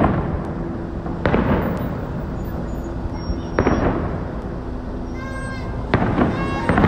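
Aerial firework shells bursting overhead: four booms, roughly two seconds apart with the last two close together, each trailing off in an echo. A short high-pitched cry is heard twice near the end.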